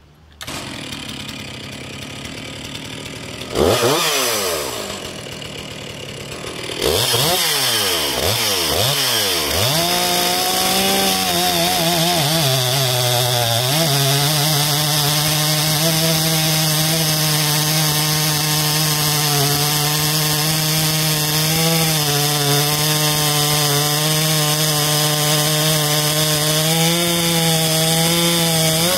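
Stihl MS 460 two-stroke chainsaw. It comes in about half a second in and is revved hard several times, its pitch falling and rising. About ten seconds in it settles into a steady full-throttle whine as the chain cuts through a thick tree trunk, sagging briefly in pitch under load.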